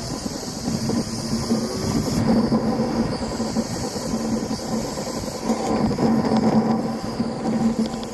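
Motorcycle running along the road: a steady engine hum under a continuous rush of road and wind noise, swelling slightly a couple of times.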